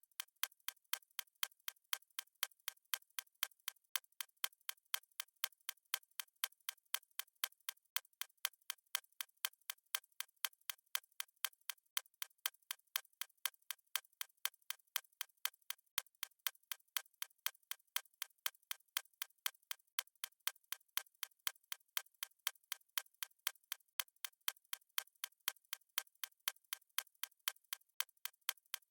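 Clock-tick sound effect of a countdown timer: sharp, thin ticks at a steady, quick, even pace, with no low end.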